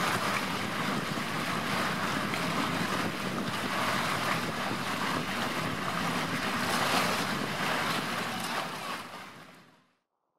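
Sea water rushing and splashing along the hull of a moving boat, with wind buffeting the microphone; a steady wash of noise that fades away about nine seconds in.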